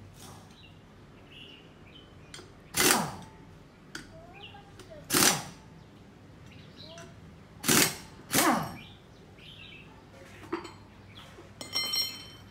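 Pneumatic impact wrench fired in four short bursts on the bolts of a motorcycle's rear wheel hub, the last two close together, each dropping in pitch as it stops.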